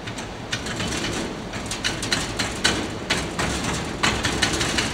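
Hand rammer pounding molding sand down into a flask: repeated dull thuds, a few a second at an uneven pace, as the sand is packed around the pattern.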